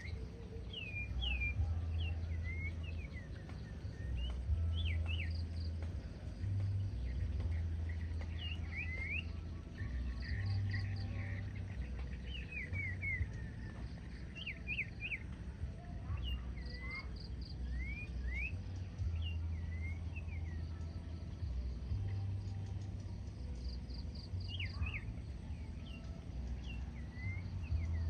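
A caged huýt cô decoy bird singing: a run of short, quick whistled notes, each sweeping sharply up or down, repeated throughout. A low rumble comes and goes underneath.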